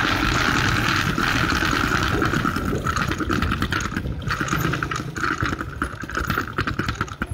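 Small motorcycle riding along a road: its engine runs under heavy wind buffeting on the microphone, and the sound gets quieter and choppier near the end as the bike eases off.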